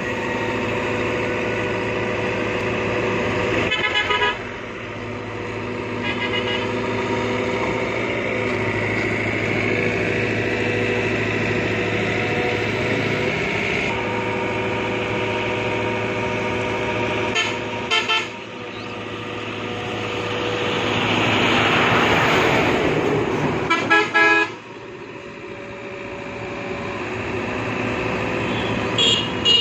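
Tracked hydraulic excavator's diesel engine running, its level rising and falling as the boom and bucket work under load. About 21 to 23 seconds in, a swell of rushing noise as a bucket of sand pours into the tipper truck's bed, and several brief bursts of rapid clicking come through at intervals.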